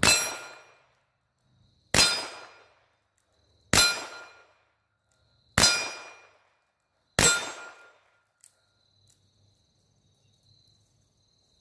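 Smith & Wesson 617-6 .22LR revolver fired five times, double action, roughly every two seconds, each shot followed by the ring of a hit steel plate target.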